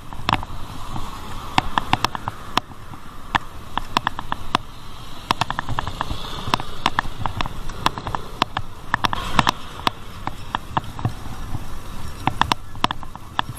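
Riding noise from a bicycle camera: a steady rumble of wind and road. Over it run irregular sharp clicks and rattles, several a second.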